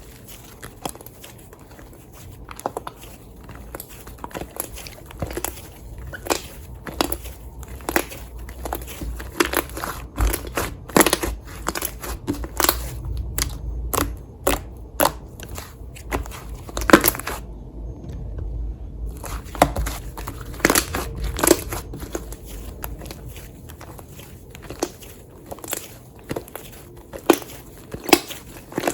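Slime being squished and pressed by hand, giving irregular crackling pops and clicks, with a short pause about eighteen seconds in.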